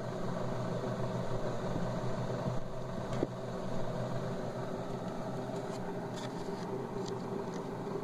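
Small hermetic refrigerator compressor running with a steady hum, with a light knock about three seconds in.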